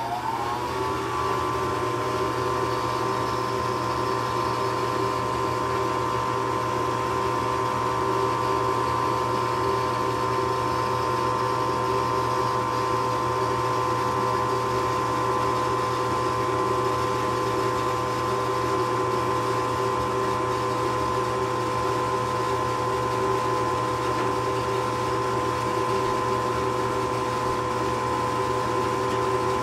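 A furnace's electric motor spins up in the first second, its whine rising, then runs steadily with a constant whine and hum.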